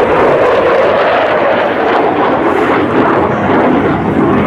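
Jet noise from a McDonnell Douglas F-15C Eagle's twin turbofan engines as it flies a display pass: a loud, steady rush.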